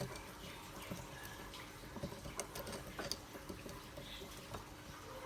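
Faint, irregular small clicks and scrapes of a screwdriver working the screw inside a faucet handle.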